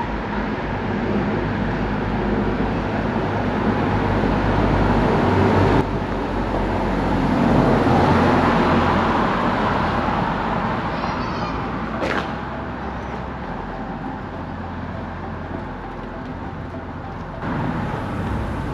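Road traffic on a town street: a vehicle's engine and tyre noise swell as it passes, loudest about eight seconds in, then fade to a lower steady hum.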